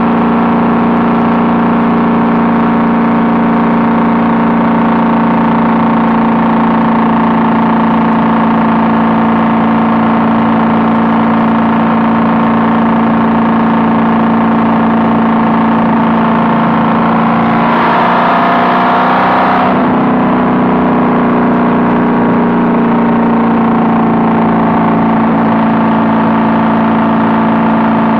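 Honda Valkyrie's flat-six engine running steadily through Cobra six-into-six exhaust pipes, cruising at an even pace. About two-thirds of the way through there is a brief louder rush of about two seconds with the pitch shifting, before it settles back.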